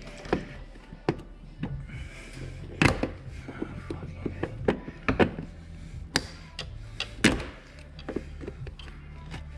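Pliers working a hose clip off its fitting: a series of irregular sharp metal clicks and knocks, several louder ones among them, over a steady low hum.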